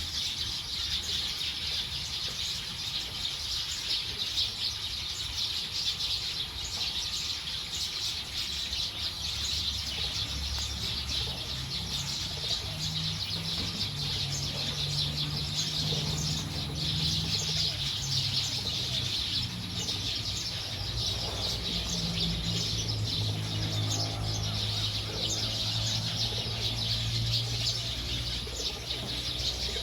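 Dense chorus of many small birds chirping at once, a flock settling down to roost for the night. From about twelve seconds in, low steady tones join underneath.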